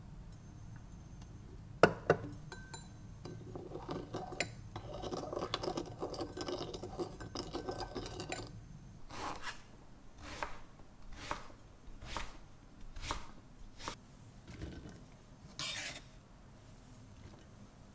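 Kitchen food preparation with dishes and utensils. Two sharp clacks, then several seconds of dense clattering, then a run of short, even strokes about one a second, and a brief rush of noise near the end.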